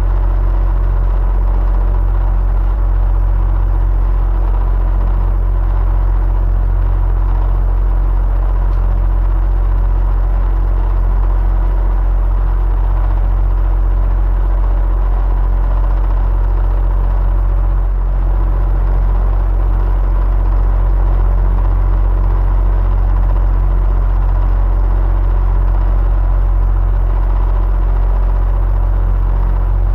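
Electric fan running steadily: a strong low hum under a constant whir that never changes.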